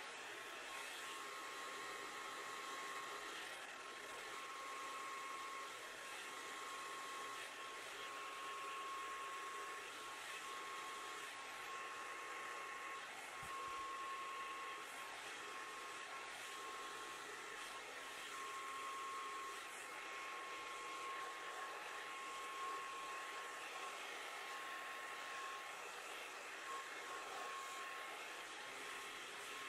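A hand-held hair dryer runs steadily on its low setting with its diffuser removed, blowing air into the hair. It is a steady rush of air with a constant, thin motor whine.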